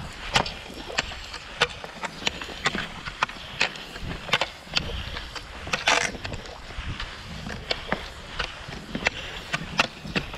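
Cross-country skis sliding and scraping over thin snow, with ski poles planted in a steady rhythm, their tips clicking sharply about twice a second. A louder, longer scrape about six seconds in.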